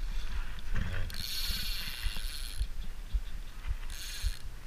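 Spinning reel's drag buzzing as a hooked carp pulls line off: one run of about a second and a half starting about a second in, then a shorter burst near the end.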